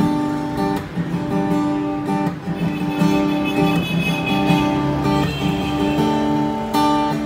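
All-solid-wood steel-string acoustic dreadnought guitar played with strummed chords that ring out, the chord changing every second or so.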